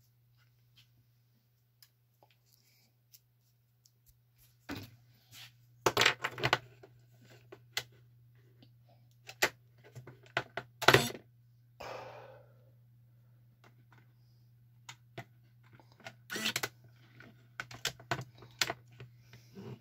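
Sharp clicks and knocks of a Mercedes EZS ignition switch and its key being handled and worked on a bench, loudest about six and eleven seconds in, with a brief falling rush about twelve seconds in. A steady low hum runs underneath.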